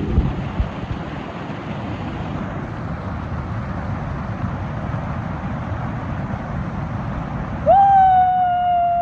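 A steady rumbling noise, with two short knocks in the first second; near the end a vehicle horn sounds one long loud blast, its pitch sagging slightly as it holds.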